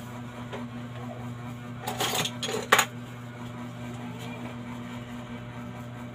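About two seconds in, small hard kitchen items are handled at the counter: a second of jangling clinks that ends in one sharp knock. A steady low hum runs underneath.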